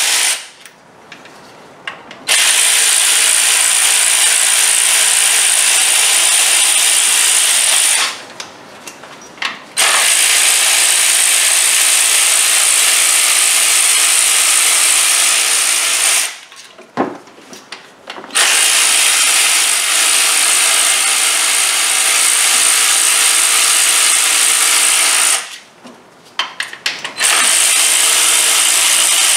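Power ratchet running bolts at the front of the engine, by the water pump. It runs steadily for several seconds at a time, with four short pauses of about two seconds and a few clicks in between as it is moved from bolt to bolt.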